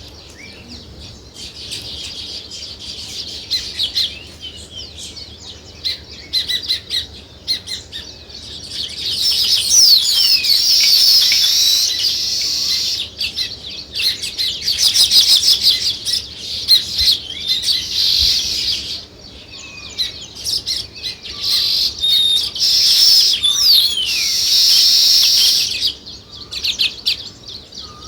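A flock of sparrows chirping in a dense, continuous chorus of short, high chirps and quick trills, swelling louder in several stretches from about a third of the way in.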